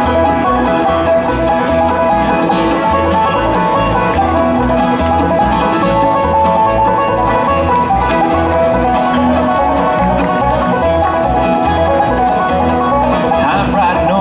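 Bluegrass band playing an instrumental passage, with banjo and guitar over a steady, evenly pulsing bass beat.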